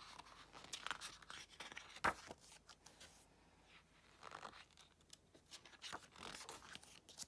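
Glossy photobook pages of a K-pop album rustling as they are handled and turned, with one sharp click about two seconds in.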